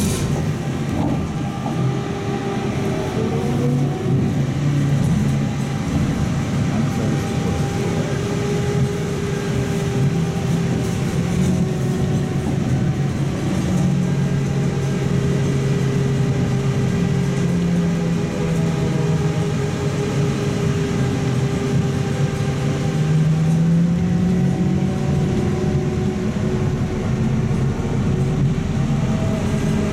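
Inside a moving Trolza-5265 'Megapolis' trolleybus: the electric traction drive whines in steady tones that slide down and back up as the trolleybus slows and speeds up, over constant road rumble.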